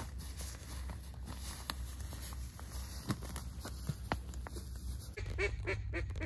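Footsteps and scattered clicks on frosty ground, then, about five seconds in, a quick run of about five duck quacks.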